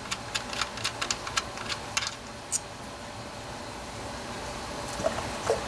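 Ratchet wrench with an 8 mm deep-well socket clicking in a quick run for about two seconds while turning out an ignition coil hold-down bolt, then a single sharp metallic clink. A steady hiss runs underneath.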